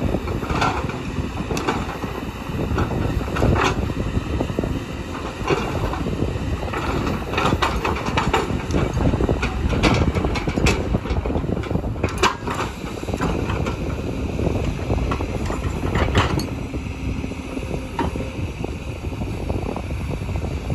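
Kobelco excavator's diesel engine running steadily under load, with scattered metallic clanks and knocks from the working machine as soil is moved.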